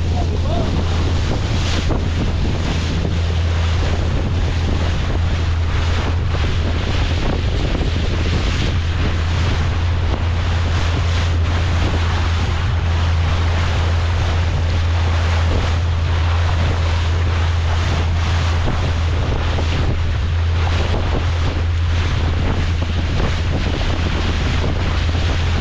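A boat's engine running steadily with a low drone, with wind buffeting the microphone and water rushing past.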